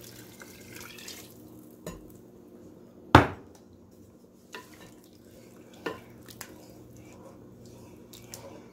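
Chicken stock poured into a Dutch oven and stirred with a wooden spoon: liquid sloshing, with a few knocks against the pot and one sharp, loud bang about three seconds in.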